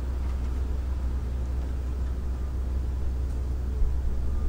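Steady low hum with room noise, and a single brief knock near the end.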